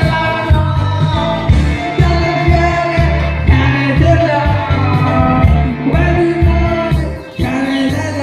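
A man singing karaoke into a microphone over a pop backing track with a steady beat, both played through the videoke machine's loudspeaker.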